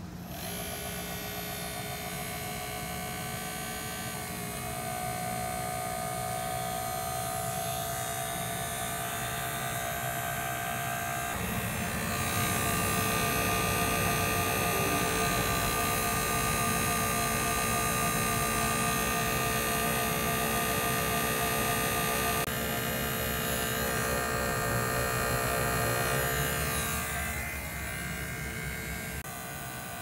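NAVAC NP2DLM cordless 2 CFM HVAC vacuum pump starting up and running with a steady motor hum, its tone and level shifting abruptly a few times. It is pulling a vacuum on an air-conditioning line set and indoor unit, working down through the roughing stage.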